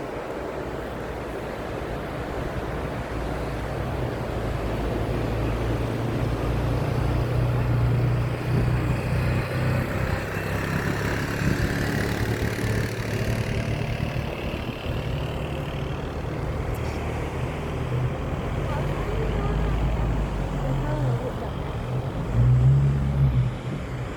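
A vehicle engine running as it drives, its low hum rising and falling in pitch, over wind and surf noise; it swells louder briefly near the end.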